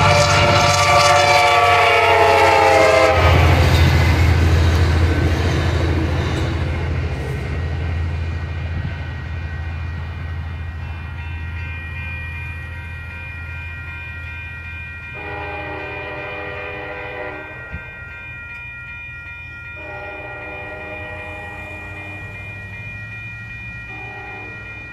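A Nathan K5LA five-chime air horn on an F59PH locomotive blasts close by, its chord dropping in pitch as the locomotive passes. The deep drone of the EMD diesel follows and the passenger cars roll past with wheel clatter, fading slowly. The horn then sounds three more times from farther off, the first two blasts about two and a half seconds each and the last one short.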